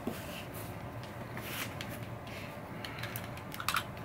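Cardboard parts box being handled and opened: faint rustling and scraping, with a few light clicks near the end.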